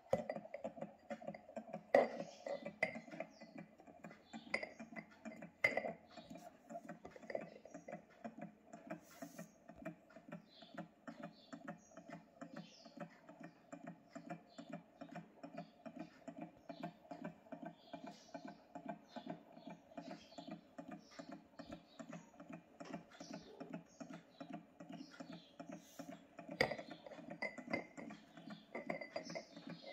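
Small low-temperature-difference Stirling engine running, its flywheel and piston linkage giving a steady rhythmic ticking of a few beats a second. A few louder knocks come as the metal base is handled.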